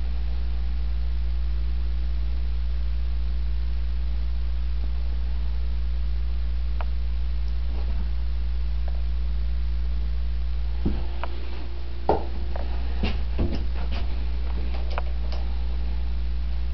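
Steady low electrical hum, with a handful of short metallic clicks and knocks about two-thirds of the way through from a wrench and the chrome fork clamps being handled.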